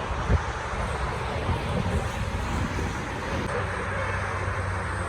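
Steady road traffic noise, a low rumble of passing vehicles, with one short knock about a third of a second in.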